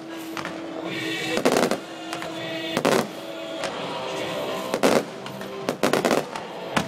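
Aerial fireworks shells bursting: about five loud bangs spaced one to two seconds apart, with smaller pops in between.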